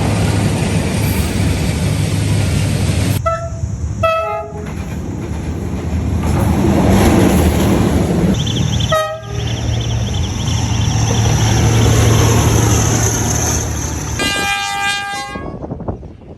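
D19E diesel-electric locomotive running close by, its engine and wheels making a loud steady noise, with short horn blasts: two quick toots a few seconds in, a brief one about halfway, and a longer blast near the end.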